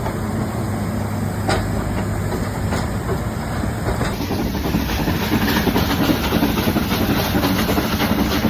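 Nilgiri Mountain Railway train running, a steady rumble of wheels on the rails with hiss and a single click about a second and a half in. About four seconds in it grows brighter and a little louder.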